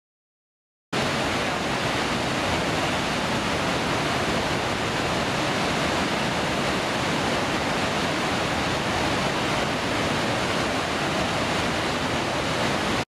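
Waterfall: a steady rush of falling water that cuts in suddenly about a second in and stops abruptly near the end.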